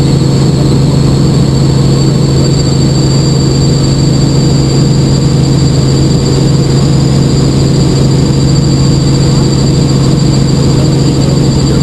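Small helicopter in flight, heard from inside the cabin: the steady drone of its engine and rotors, a strong low hum with a thin high-pitched whine above it, unchanging throughout.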